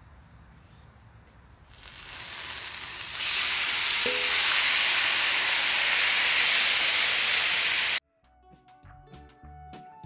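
Seasoned chicken pieces sizzling on a hot, oiled flat-top griddle as they are tipped onto it and spread out. The sizzle swells about two seconds in and grows loud a second later, then cuts off abruptly near the end, giving way to background music.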